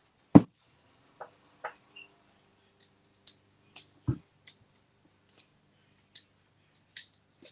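A plastic jar of paste being handled: a sharp knock on the table about half a second in and another about four seconds in, with light clicks and ticks between as she works at its lid, which is stuck fast with dried paste around the thread.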